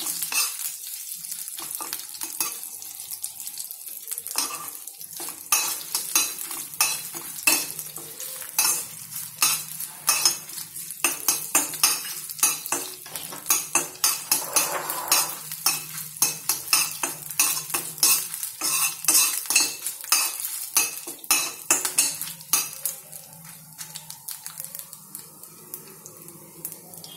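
Tempering of mustard seeds, cumin, urad and chana dal, curry leaves and chilies sizzling in oil in a stainless steel pan while a metal spoon stirs it, with frequent sharp clicks and scrapes of metal on the pan. The clicking thins out in the last few seconds.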